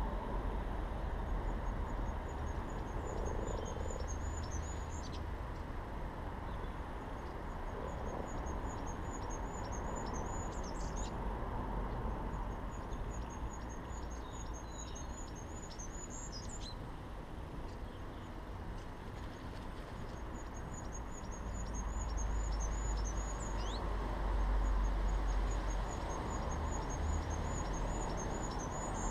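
A songbird singing a high, rapid phrase of repeated notes, five times, each lasting a few seconds and ending in a quick flourish, over a steady low outdoor rumble.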